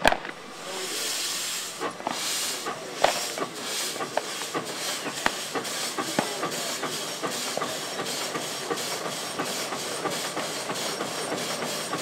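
Steam traction engine starting to pull under belt: its exhaust chuffs begin as a few widely spaced puffs and quicken into a steady, rapid beat, over a continuous hiss of steam.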